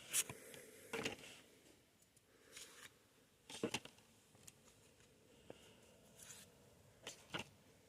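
Pokémon trading cards being handled and slid against each other: a handful of faint, brief rustles and scrapes spread through a quiet stretch.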